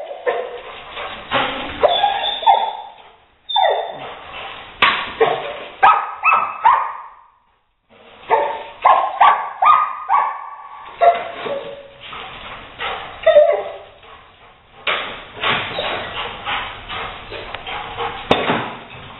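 Rottweiler barking repeatedly at a gray squirrel it is chasing, in quick runs of barks with short pauses between.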